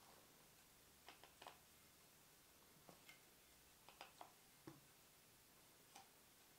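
Faint, scattered clicks and light taps of an axe head being handled and slipped into and out of its sheath, with one slightly duller knock just before the five-second mark, over near silence.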